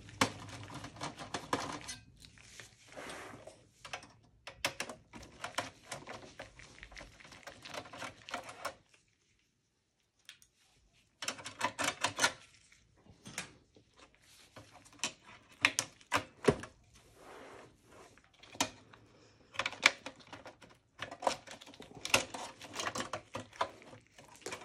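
Bursts of rapid clicking and rattling as power-supply cables are worked loose from the motherboard in a small-form-factor desktop PC's metal case, with plastic connectors and metal parts knocking. The sound breaks off into silence for about two seconds near the middle, then the clicking resumes.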